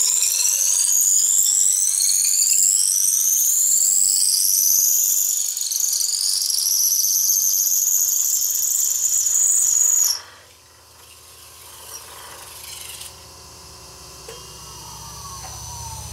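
Veritas dowel maker's blade shaving a spinning chinaberry blank on the lathe into a dowel: a loud, high whine that climbs in pitch for about ten seconds, then cuts off suddenly as the cut ends. A much quieter low hum from the lathe follows and grows toward the end.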